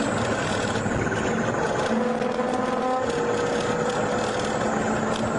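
Steady engine and road noise of a car driving at highway speed, heard from inside the cabin.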